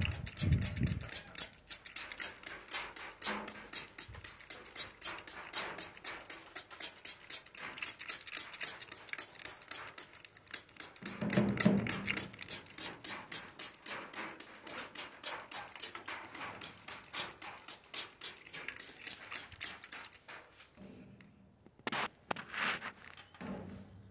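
Rapid, even ticking of water spray hitting the aviary, easing off about 20 seconds in into a few separate splashes. Brief bird calls sound about half a second in and again around 11 to 12 seconds.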